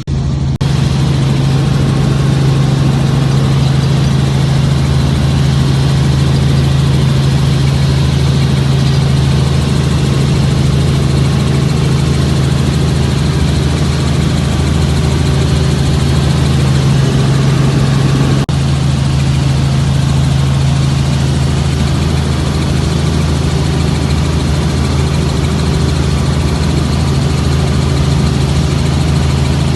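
Helicopter engine and rotor running, a loud, steady, even drone with a strong low hum.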